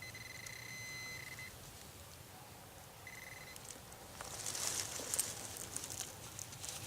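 Metal detector giving a steady electronic tone for about a second and a half and again briefly around three seconds in, sounding over a buried metal target, a brass nail. From about four seconds in, the scratchy rustling of soil being dug and handled.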